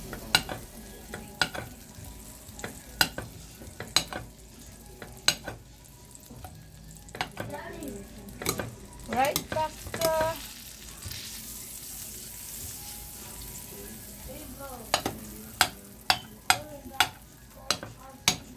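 A slotted metal spatula chops and scrapes through butter against a nonstick frying pan, with sharp irregular taps about once a second. There is a squeaky scrape about nine to ten seconds in and a quicker run of taps near the end, over a faint sizzle of the butter melting.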